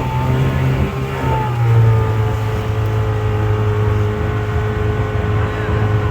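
Boat motor running steadily and close by, with a brief shift in pitch about a second in before it settles again.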